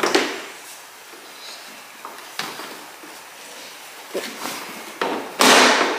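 Light knocks and scuffs of hard plastic as a toddler climbs into a plastic battery-powered toy Jeep, with a loud hissing rush of noise about five seconds in.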